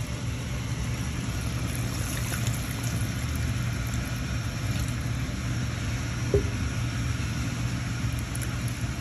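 Water poured into a pan of bottle gourd, potato and ridge gourd curry, the liquid simmering and bubbling over a steady low hum.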